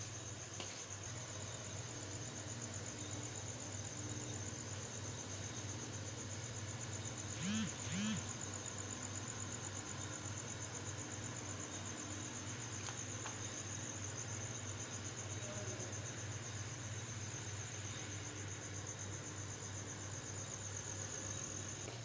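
Crickets trilling steadily at a high pitch, over a low steady hum. A little over seven seconds in, two short rising-and-falling calls stand out briefly above them.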